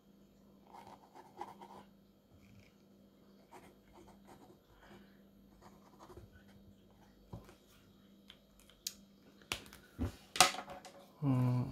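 Pen writing on a pad of sticky notes: faint scratching strokes, then a few sharp knocks near the end as the pens are handled.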